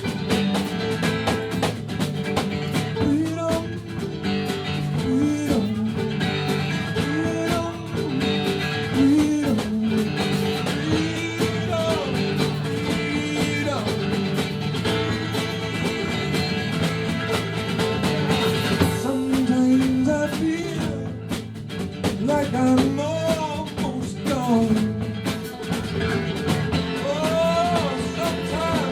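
Live country-rock band playing a passage without sung words, guitar to the fore, with a lead line bending up and down in pitch over a steady accompaniment.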